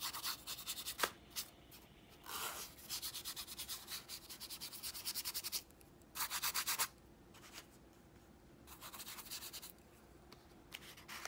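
Paintbrush scrubbing acrylic paint onto a small canvas, in several bursts of quick back-and-forth strokes with short pauses between.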